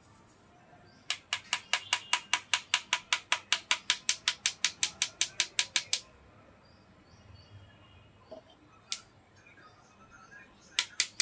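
A small tool rubbed back and forth across a stainless steel mesh strainer, working crushed naphthalene powder through the mesh. It makes a rapid, even run of sharp scrapes, about six a second, that stops after some five seconds. A single scrape follows, then a short burst of a few more near the end.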